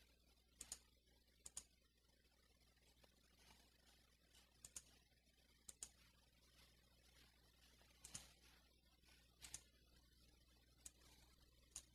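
Near silence with faint, scattered clicks of a computer mouse, about a dozen, several in quick pairs, over a low steady hum.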